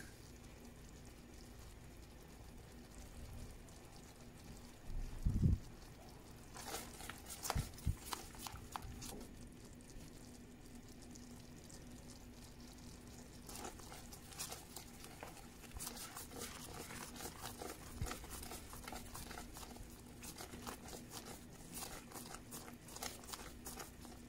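Cream sauce simmering in a cast iron skillet, its bubbles popping and crackling in small irregular clicks that grow dense from about halfway, as a wooden spoon stirs through it. A dull thump about five seconds in, and a faint steady hum underneath.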